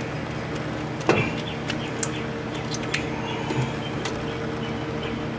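Light metallic clicks and taps as hands work a 17 mm mounting bolt into a new alternator's bracket, trying to line up the holes. A steady electrical hum runs underneath.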